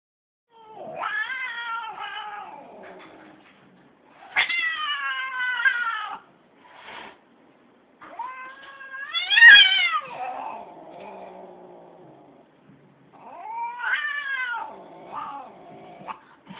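Domestic cat meowing repeatedly: four long calls that rise and then fall in pitch, with a few shorter meows between them. The loudest call comes around the middle.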